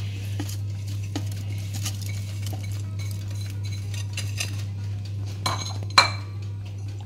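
Chunks of cucumber and fruit dropped into a blender jar, making a scatter of light knocks and clinks against the jar, with the loudest, sharpest knock about six seconds in. A steady low hum runs underneath.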